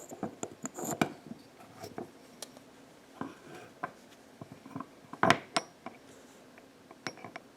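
Small metal pieces of a hand-made screwdriver (steel blade and ferrule) clinking and tapping as they are handled, with a louder knock about five seconds in.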